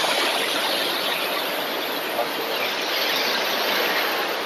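Heavy storm surf breaking and washing up the sand close by: a loud, steady hiss of waves and foam.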